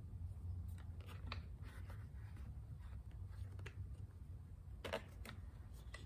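Light clicks and taps of a new gasket and the carburetor being fitted by hand onto a Husqvarna 128LD trimmer engine, with one sharper click about five seconds in, over a steady low hum.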